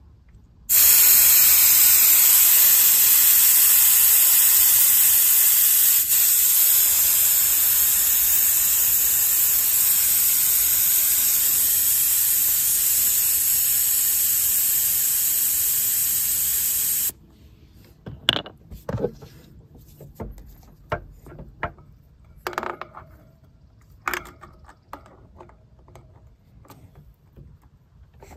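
Air hissing out of a Sur-Ron Ultra Bee's rear dirt-bike tire through the held-open valve to lower the pressure, a loud steady hiss of about sixteen seconds that cuts off suddenly. Light clicks and knocks follow as an air hose chuck is fitted to the valve.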